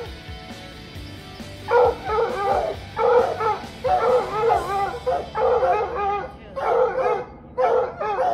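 Background music at first. From about two seconds in, coonhounds bay in a run of loud, wavering calls roughly once a second, turning to shorter barks near the end.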